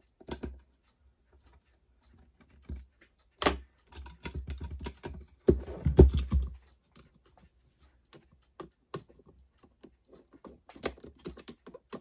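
Small, irregular clicks and taps of a screw being driven and metal parts being fitted as the rear truck is mounted on a 1947 Lionel #675 toy steam locomotive, with the loudest, densest flurry of clicks about halfway through.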